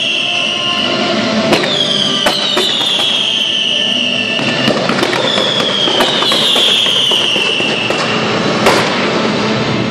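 Fireworks display: several whistling fireworks, each a falling whistle lasting about two seconds, overlapping one another, with sharp cracks going off between them. The loudest crack comes near the end.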